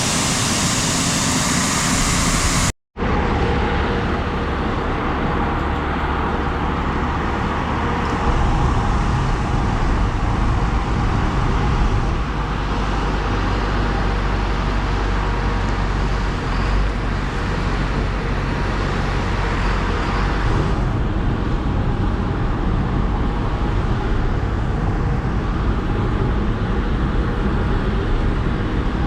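Farm tractor engine running steadily, a loud constant mechanical drone with a low hum. It cuts out for an instant about three seconds in and comes back the same.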